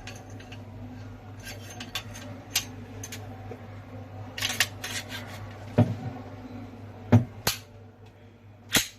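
Metal parts of a blank pistol being handled and fitted back together by hand: light rattling and several sharp clicks as the pieces go into place.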